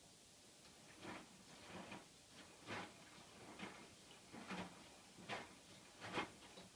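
Hotpoint washing machine drum turning slowly in the wash stage of a cycle, laundry and water swishing softly about once a second.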